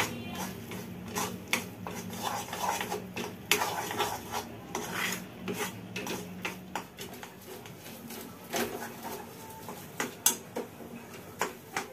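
Metal spoon scraping and clinking against a steel kadhai as thick Mysore pak mixture is stirred without a break, in irregular scrapes and knocks, to keep it from sticking and burning on the bottom.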